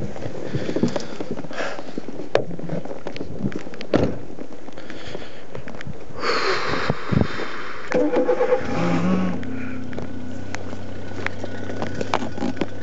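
Car sounds heard from inside the cabin, with knocks and rustling from the camera being handled. About eight and a half seconds in, a car engine starts and settles into a steady hum.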